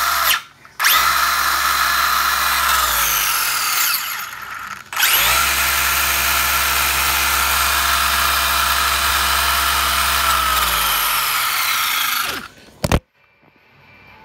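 Hobby-grade RC car's brushless electric motor and drivetrain revved hard, giving a loud, high-pitched whine. There is a brief blip, then two long full-throttle runs of several seconds each, each winding down in pitch as the throttle is let off, and a short blip near the end.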